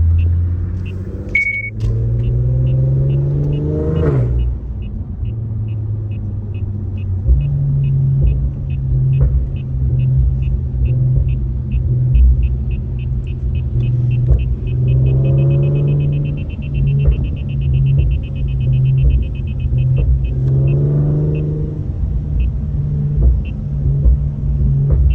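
Nissan VQ V6 through a Borla exhaust, idling and being blipped: the revs climb and drop three times, about two seconds in, midway and near the end. A faint, regular high ticking runs underneath and speeds up in the second half.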